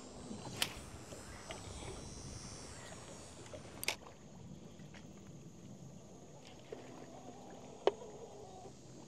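Faint, steady sound of water and wind around a small fishing boat, broken three times by a sharp click or knock.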